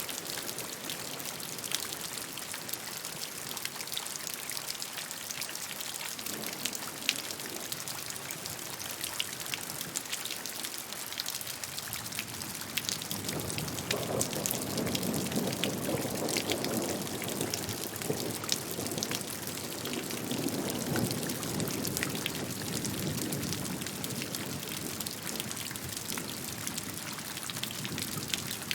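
Steady rain falling, with many close single drops ticking through an even hiss. About halfway through, a deeper rushing swell builds for some ten seconds and then eases off.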